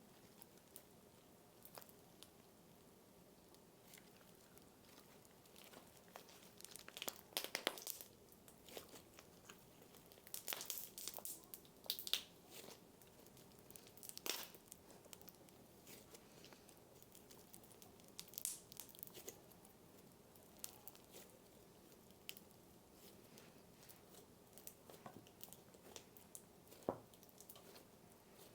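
Cereal slime being slowly stretched and pulled, its embedded cereal pieces giving soft crackling and crunching sounds in irregular clusters.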